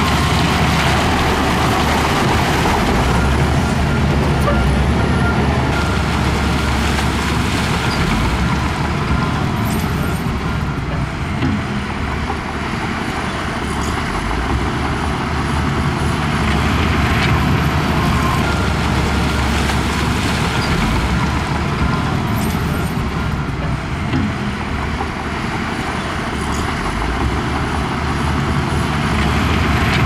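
Heavy diesel earthmoving machinery, a wheel loader and bulldozer, running steadily under load, with a faint high whine that wavers in pitch.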